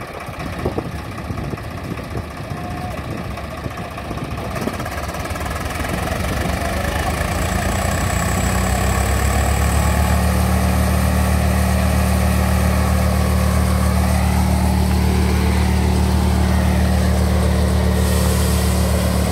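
Swaraj 855 FE tractor's diesel engine driving a thresher, growing louder over the first several seconds and settling about eight to ten seconds in into a steady, even working hum as the machine comes up to speed.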